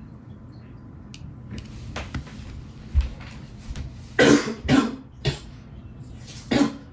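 A man coughing four times in a few seconds, a reaction to breathing in fumes during the repair. A single low knock comes about a second before the first cough.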